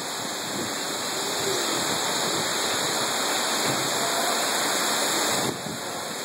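Torrential rain and strong wind of a severe thunderstorm, a dense, steady rush that builds over the first couple of seconds and drops off abruptly about five and a half seconds in.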